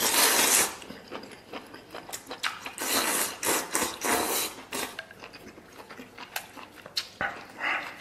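A person slurping beef tripe strips off chopsticks in three loud slurps, at the start and about three and four seconds in, then chewing the crisp tripe with quick crunchy clicks.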